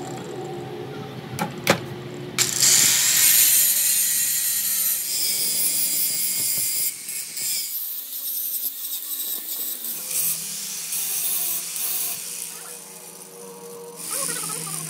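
Handheld angle grinder with a flap disc grinding a metal gear segment clamped in a bench vise: a loud, harsh hiss over the motor's hum. It starts about two and a half seconds in, after a couple of sharp metal knocks as the gear is set in the vise, and eases off for a moment near the end.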